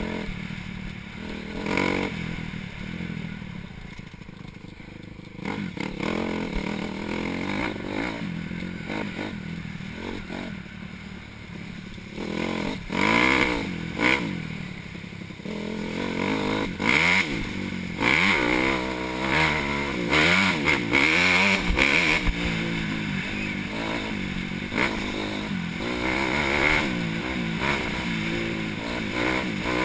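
Dirt bike engine ridden along a rough trail: fairly quiet and steady for the first several seconds, then revving up and down repeatedly through the middle as the rider works the throttle, with scattered short knocks from the bike over the ground.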